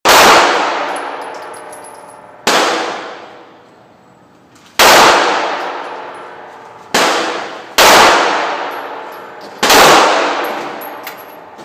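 Six gunshots from a firearm, spaced unevenly about one to two and a half seconds apart, each followed by a long ringing echo that dies away.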